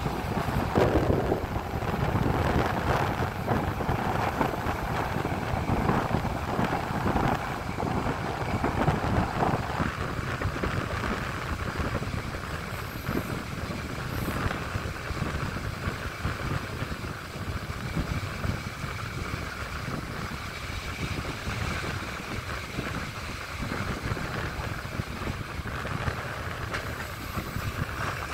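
Passenger train rolling along the track, heard from an open carriage window: a steady rumble of wheels on rails that eases a little about ten seconds in.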